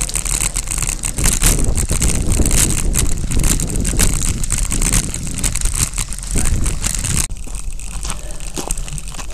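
Bicycle rolling over a loose gravel track, heard through a bike-mounted action camera: a continuous crunching and rattling with many small clicks over a low wind rumble on the microphone. The noise drops sharply about seven seconds in and goes on quieter.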